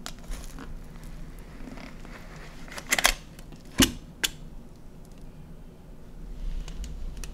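Metal cake pan being handled and its side ring lifted off a cheesecake: soft rubbing and three sharp metallic clicks a little after the middle.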